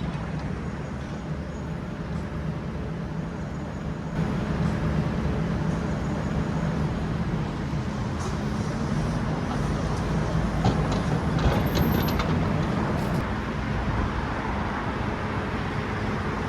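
Steady engine and road-traffic noise: a low, even hum that grows a little louder about four seconds in, with a few faint ticks near the middle.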